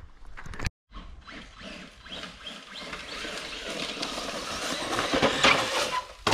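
Electric RC truck running off-road, its motor and drivetrain making a fast buzzing whir that grows louder as it comes closer, loudest about five seconds in.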